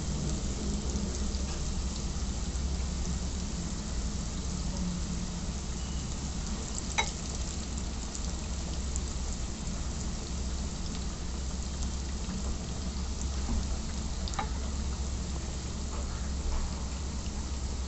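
Battered chicken balls deep-frying in hot oil over low heat: a steady sizzle, with two short clicks, about seven seconds in and again about seven seconds later.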